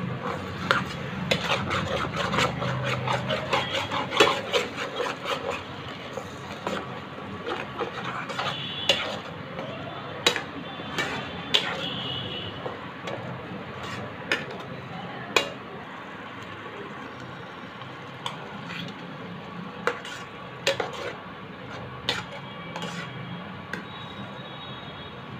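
A cooking spoon stirring a thick curry gravy in a nonstick pan, scraping through the sauce with sharp taps against the pan. The stirring is brisk for the first several seconds, then slows to scattered scrapes and taps.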